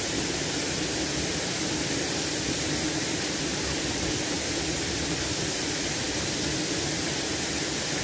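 Waterfall pouring over rocks into a pool: a steady, unbroken rush of falling water.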